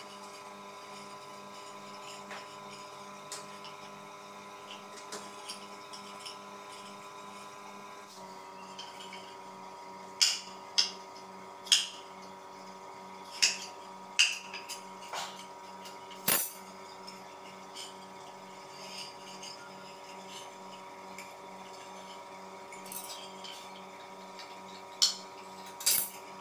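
A metal hand tool and coil wire click and scrape against a ceramic hotplate plate as a heating coil is pressed into its grooves. Sharp clicks come singly, several between about ten and sixteen seconds in and two more near the end, over a steady faint hum.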